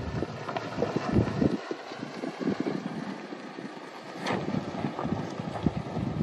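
Toyota Tacoma pickup crawling slowly over sandy ruts, its engine running under light load, with wind buffeting the microphone. A single sharp click about four seconds in.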